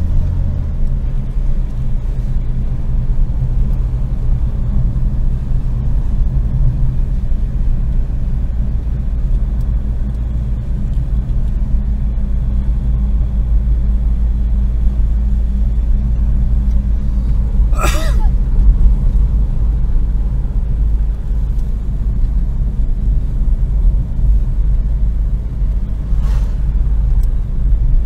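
Car engine and road noise heard from inside the cabin while driving: a steady low rumble, with a brief sharp higher sound about two-thirds of the way through and a fainter one near the end.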